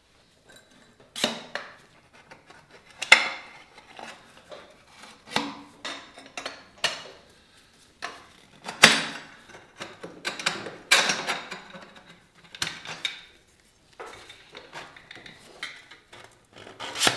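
Stainless steel Black Widow exhaust header pipes clinking and knocking as they are handled and slotted together: a string of irregular sharp metallic clanks, some ringing briefly, the loudest about three and nine seconds in.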